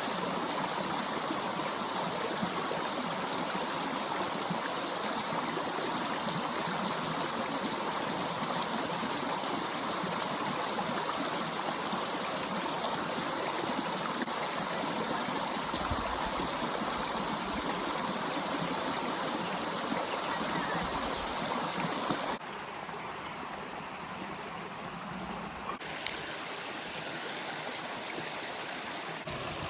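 Running water from a stream: a steady rushing and trickling that drops to a quieter level about two-thirds of the way through.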